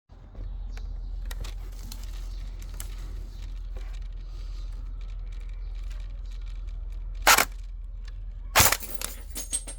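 Two sharp shots from an airsoft AK-47 rifle, a little over a second apart, late on, over a steady low hum, followed by a few lighter clicks.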